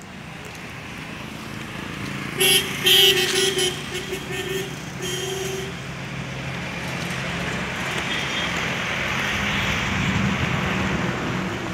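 A vehicle horn honks in a run of short toots a few seconds in, over the low running of a motor vehicle engine and road traffic noise that swells in the second half.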